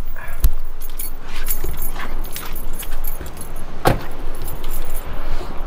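Metallic jangling and clicking handling sounds, with a sharp knock about half a second in and a louder one near four seconds.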